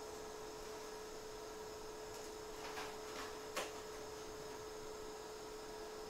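Faint, steady electrical hum on one even tone over a light hiss, with three faint short clicks a little past the middle.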